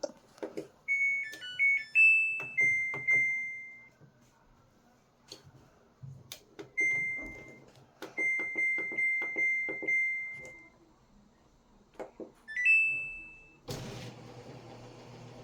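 Washing machine control panel: a short electronic start-up jingle, clicks of buttons being pressed and several held beeps, ending in a rising two-note chirp as the cycle is started. About 14 s in, a steady rush begins as water starts flowing into the machine to fill it.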